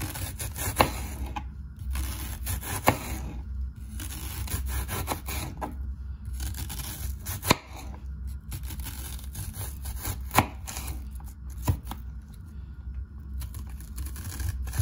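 A serrated knife slicing a white onion into rings on a plastic cutting board. The blade cuts through the onion with a scratchy sawing sound, and every few seconds it gives a sharp knock as it hits the board.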